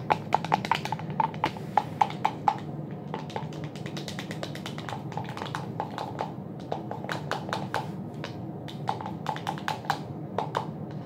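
Plastic utensil handle stirring wet slime mixture in a plastic cup, clicking and tapping irregularly against the cup's sides several times a second, with short pauses.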